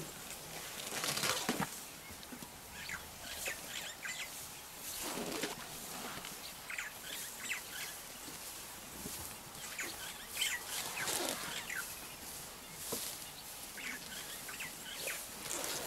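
African elephants pulling up and tearing grass and brushing through it as they feed and walk close by: irregular rustles and rips, loudest about a second in and again near the middle.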